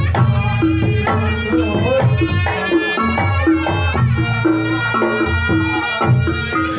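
Reog Ponorogo gamelan music: a nasal slompret reed-pipe melody over kendang drumming and repeated struck gong-chime notes, loud and continuous.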